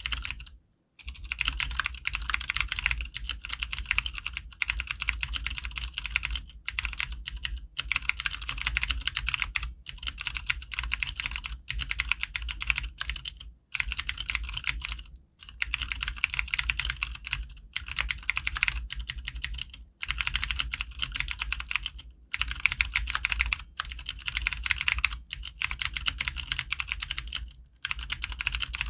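Fast typing on a Cherry G80-3000S tenkeyless mechanical keyboard with clicky Cherry MX Blue switches, PBT keycaps and a plastic case. It makes a dense, steady run of sharp clicks, broken by brief pauses every few seconds.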